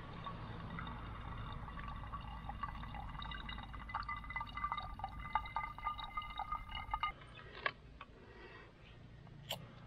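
Water running and dripping as it is squeezed through a filter into a container, with small drips and a few steady ringing tones. It stops abruptly about seven seconds in, leaving only a few light clicks of handling.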